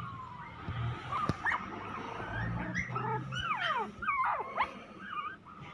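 Toy Pomeranian puppies yipping and whimpering in a quick string of short, high-pitched cries that rise and fall in pitch.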